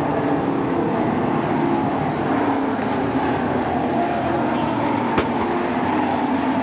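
A pack of sport trucks racing around a short oval track, their engines running together in a steady, continuous drone. A single sharp click comes about five seconds in.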